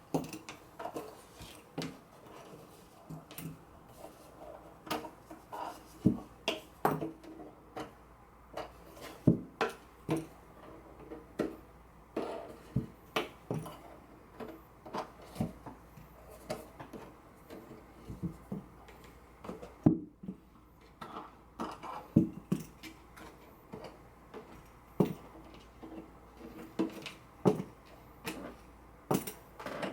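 Irregular clicks and light knocks, a few a second, with a faint ring after some: small metal and wooden guitar parts and hand tools being handled while the archtop guitar is put back together.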